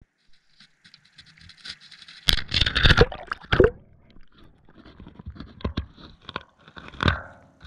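A camera on a pole plunged into seawater: a loud splash a little over two seconds in, then muffled underwater bubbling with scattered knocks and clicks, and another loud splashing thud near the end.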